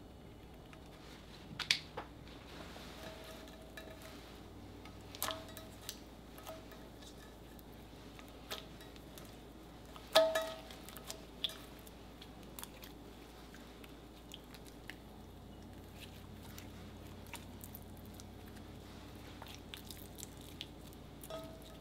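Slime being pressed, folded and stretched by hand: quiet sticky squelching broken by a few sharp wet pops, the loudest about ten seconds in.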